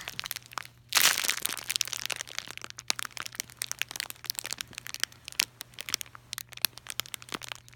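Plastic packaging crinkling and crackling as a package is torn open by hand, in a run of quick, irregular crackles that start loudly about a second in.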